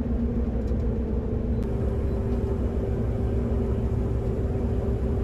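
Massey Ferguson 7270 combine harvester running steadily while harvesting wheat: a continuous low drone with a steady hum. A faint click comes about a second and a half in, where the hum shifts slightly in pitch.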